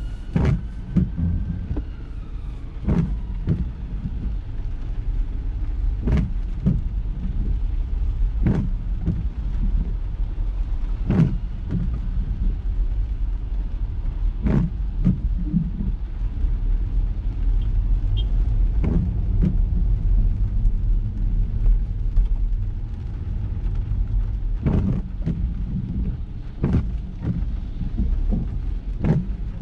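Ford EcoSport driving on wet roads: a steady low rumble of engine and tyre noise, with sharp knocks every two to three seconds.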